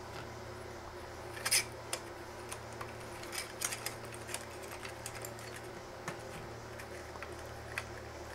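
Light clicks and taps of small metal parts being handled as the thumb screws on a laser engraver's module slider are undone and the slider is taken off. The loudest tap comes about one and a half seconds in, with a cluster of smaller ones a couple of seconds later, all over a steady low hum.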